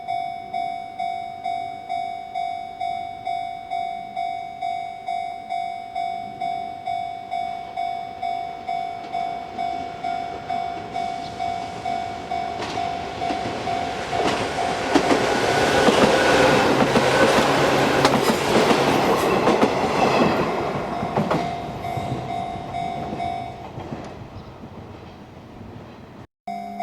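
Japanese level-crossing warning bell ringing in an even repeating ding, about three strokes every two seconds, while an Izuhakone Railway 3000 series electric train passes, its wheels clicking over the rail joints. The train builds to its loudest about halfway through and fades, and the bell stops shortly before the end.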